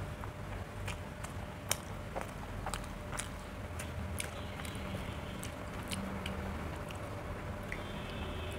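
Close-up chewing and wet mouth sounds of someone eating roti and egg curry, with many short irregular clicks.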